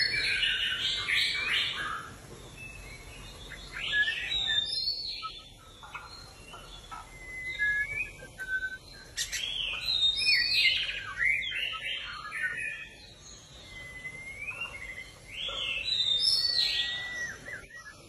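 White-rumped shama singing: loud phrases of whistled notes that glide up and down, sung in about five bursts with short pauses between.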